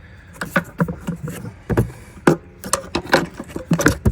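Quick irregular clicks, knocks and rattles of hands and a tool working on parts in a car's engine bay.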